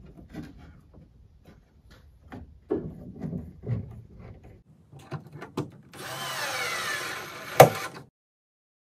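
Light knocks and scrapes of plywood pieces and a bar clamp being set, then a cordless drill runs for about two seconds into the wooden cross piece, its pitch dropping, with one sharp loud click near the end.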